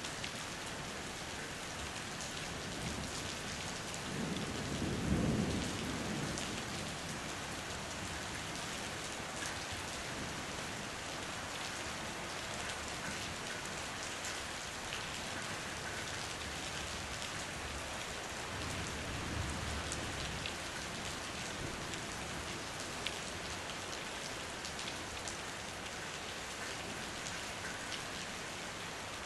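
Steady rain falling on the wet ground. A low thunder rumble swells and fades about four to six seconds in, and a fainter rumble follows about twenty seconds in.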